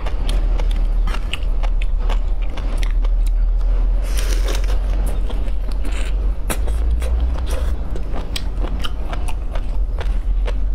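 Close-miked eating of raw whole shrimp: many small sharp crackles and clicks as the shell and legs are pulled apart and bitten, with chewing, over a steady low hum.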